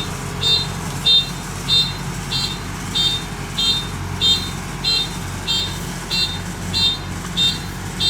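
An engine runs steadily under an electronic warning beeper. The beeper gives short, high-pitched beeps at an even pace, about three every two seconds, like a reversing alarm.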